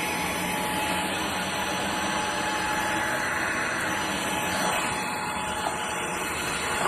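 DIFFULL V20 cordless stick vacuum running steadily, a constant whir with a thin, steady whine through it.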